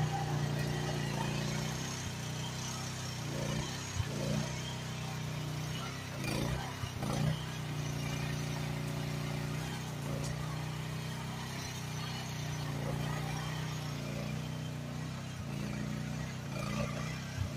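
Groundhog KH14G mini excavator's engine running steadily as the machine tracks slowly along towing a loaded four-wheel dump trailer, with a few knocks along the way.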